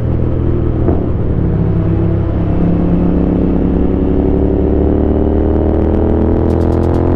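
Motorcycle engine running under way. Its pitch dips about a second in, then climbs slowly and steadily as the bike speeds up.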